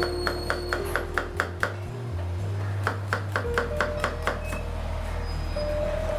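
Chef's knife chopping an onion on a plastic cutting board: two quick runs of sharp taps, one at the start and one around the middle, over background music.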